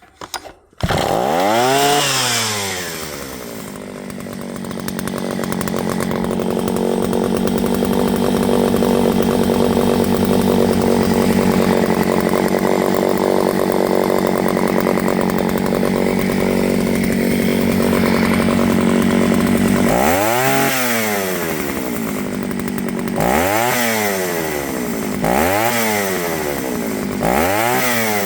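Vintage Echo 60S two-stroke chainsaw engine. It comes in suddenly about a second in with a rev, settles to a steady idle, then is revved up and back down four times near the end.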